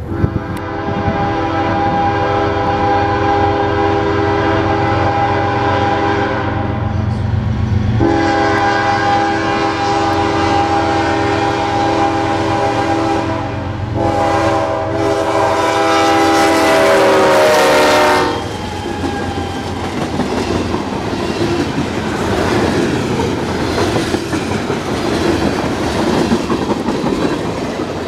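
Canadian National freight train's lead locomotive, an ES44DC, blowing its horn in long blasts for about eighteen seconds as it approaches; the chord's pitch sags as the locomotive passes. The horn then stops and the freight cars roll past with a steady wheel clatter on the rails.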